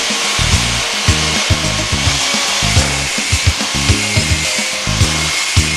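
Background music with a steady beat and a changing bass line, over a continuous even hiss.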